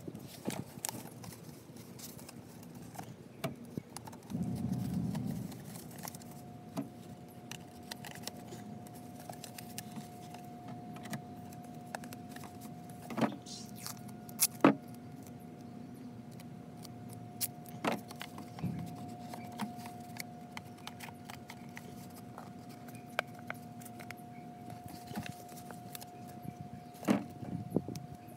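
Rustling and scattered clicks of paper, cardboard tube and duct tape being handled and taped. A steady hum runs underneath, with a higher steady tone joining about four seconds in.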